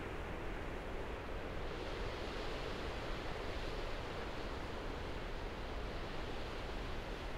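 Steady rushing outdoor ambience of wind and water, with no music or voices. It grows slightly brighter about two seconds in.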